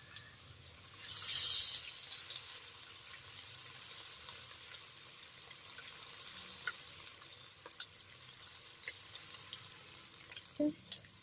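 Onions and ginger-garlic paste sizzling in hot oil in a karahi while being stirred with a silicone spatula. The sizzle swells about a second in, then settles to a steady crackling hiss with scattered pops.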